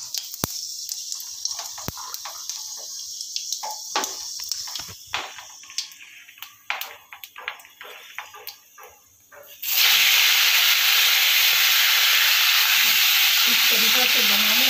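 Panch phoron seeds crackling and popping in hot oil in a wok, with a thin hiss and scattered sharp pops. About ten seconds in, a sudden loud, steady sizzle starts as marinated fish goes into the hot oil and begins to fry.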